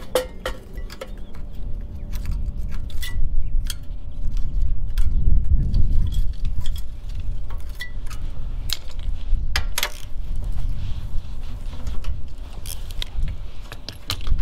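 Socket wrench loosening a spark plug from the tiller's small engine: irregular metallic clicks and taps of the ratchet and socket, over a low rumble.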